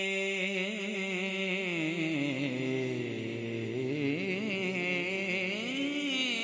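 Male naat reciter singing one long, ornamented held vowel. His voice wavers and slides down to a low pitch about three seconds in, then climbs back up.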